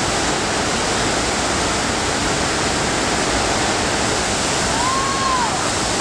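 FlowRider sheet-wave machine running: pumped water rushing in a thin sheet up the padded ride surface, a loud, steady waterfall-like rush. Near the end, a brief tone rises and falls over it.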